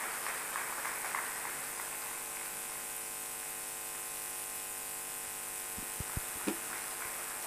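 Steady electrical buzz-hum from the hall's sound system, made of many evenly spaced tones. Faint scattered clapping dies away in the first second, and a couple of soft knocks come about six seconds in.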